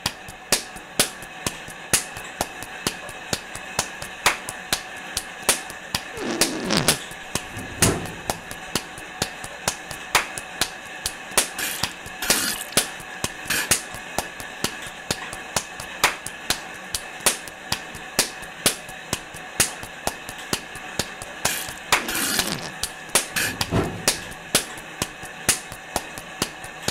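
A looped novelty beat built from sound effects: an exercise-bike whir, a whoopee cushion, a forge bellows, a fly swatter and spitting into a hose spray. Sharp smacks keep time at about two a second over a steady whir, with a long falling blurt about six seconds in and again near the end, and a few short bursts of hiss.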